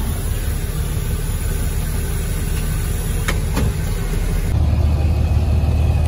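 Diesel truck engine running while driving, heard from inside the cab, with two light clicks a little past three seconds in. After an abrupt change about four and a half seconds in, a diesel truck idles with a steady low hum.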